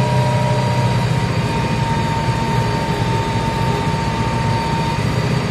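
Tractor engine running steadily under load while pulling a plough through the soil. Under the deep engine drone runs a steady high whine.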